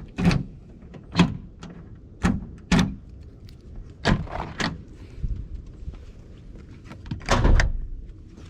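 A series of sharp knocks and thuds, about seven spaced unevenly over several seconds, with a longer, heavier thud near the end.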